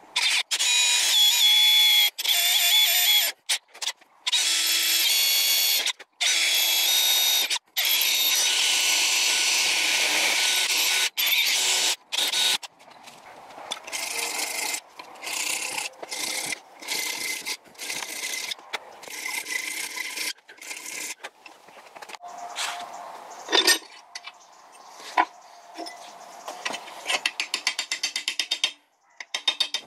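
A drill boring through a brass plate held in a vise, heard in several loud stretches that stop abruptly. From about twelve seconds in, a hand file rasps on the brass in short strokes, ending in a quick, even run of strokes.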